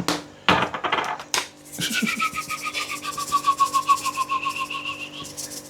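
Salt and pepper grinder being twisted: a rapid squeaky ratcheting, about eight to ten clicks a second, its squeak sliding slowly lower, after two short rustling bursts.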